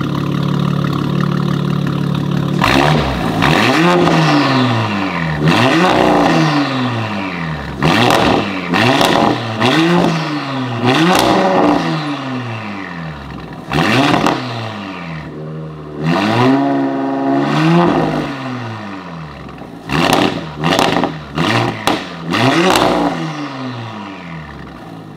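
2023 Audi RS5's twin-turbo 2.9-litre V6, breathing through 034 Motorsport high-flow downpipes and an AWE Touring exhaust, idles for a couple of seconds and is then revved in about a dozen sharp blips, each rising and falling in pitch, with one longer held rev about two-thirds of the way through. It drops back toward idle near the end.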